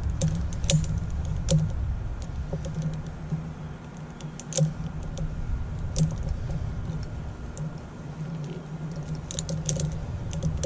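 Climbing hardware clicking and clinking at irregular moments: carabiners and a micro pulley being clipped and handled at a tree climber's tie-in point. A steady low hum runs underneath.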